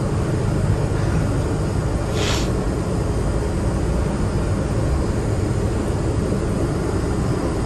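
Steady low rumble of engine and road noise inside a moving vehicle, with a short hiss about two seconds in.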